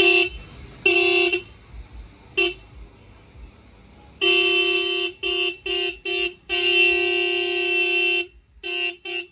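Electric vehicle horn honked in short toots, then a long blast of about a second and a half past the middle and a few quick toots near the end; one steady pitch.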